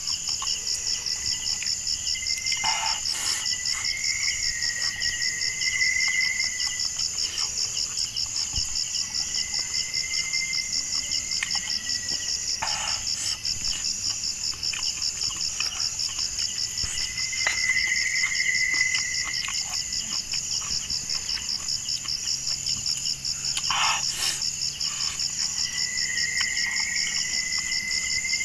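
Chorus of crickets and other night insects: a steady, high-pitched, rapidly pulsing trill, with a lower trilling call that comes and goes. Three short noisy sounds cut through it, about 3, 13 and 24 seconds in.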